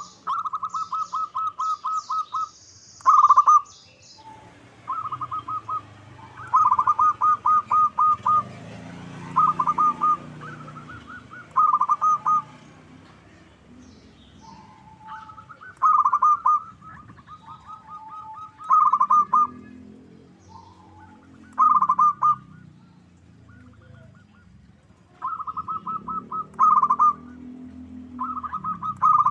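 Zebra dove (perkutut) cooing: bouts of rapid staccato notes, each phrase a second or two long, repeated every couple of seconds. Faint high chirps from other small birds sound between the phrases.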